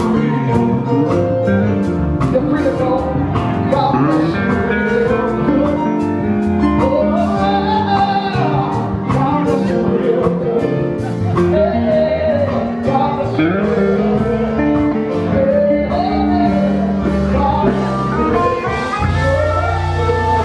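Gospel music: singing over guitar with a steady beat of about two strikes a second. Near the end it gives way to a steadier low sound.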